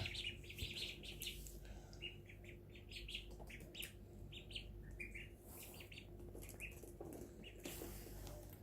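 Ducklings peeping softly: a scattering of short, high cheeps, some in quick runs, over a faint steady hum.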